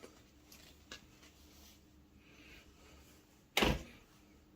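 Packaging being opened and handled: faint scattered rustles and clicks, then one short, loud thump about three and a half seconds in.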